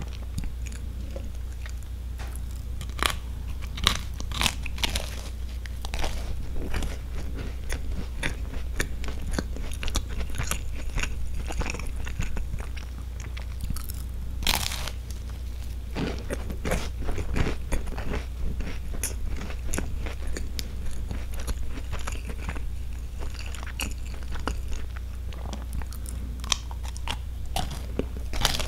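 Close-miked biting and chewing of a crisp green-tea sandwich cookie, with repeated crunches and small crackles as it breaks up, one sharper crunch about halfway through. A steady low hum sits underneath.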